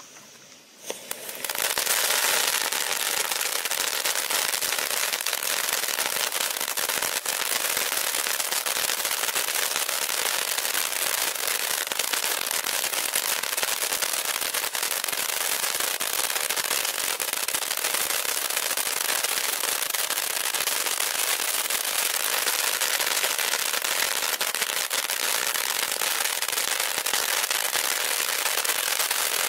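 Shogun SF895 Pop Corn Fountain, a ground fountain firework, catching about a second in. It then sprays with a steady hiss full of dense crackling pops.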